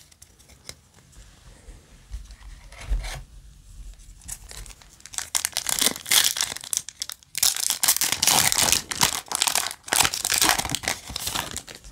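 A foil Yu-Gi-Oh! booster pack wrapper being torn open and pulled apart by hand, crinkling and ripping. It starts about five seconds in, after a quiet stretch, and runs on in dense bursts until just before the end.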